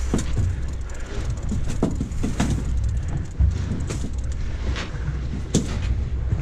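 A jet ski's engine running low and steady, with scattered knocks and splashes of water against the hull; the sharpest come about three and a half seconds in and again near the end.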